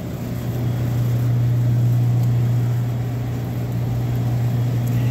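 Wheelchair rolling along a store aisle: a steady low hum with a rumble of movement that grows louder about a second in.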